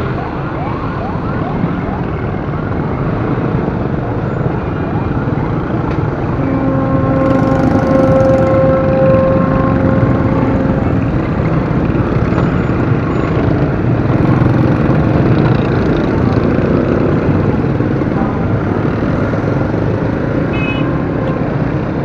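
Dense city street traffic, the steady running of many motorcycle and car engines. A long, steady vehicle horn sounds from about six seconds in for roughly four seconds, and there are a few short, fainter horn toots later.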